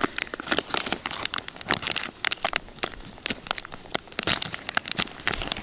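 Foil packet of dry bait dough crinkling and crackling as it is torn open by hand, a rapid, uneven run of sharp crackles.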